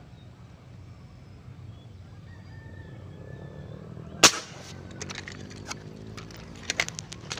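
A single sharp shot from a tiksay fishing gun about four seconds in, the loudest thing heard, followed by a string of short sharp clicks. Faint bird whistles sound before the shot.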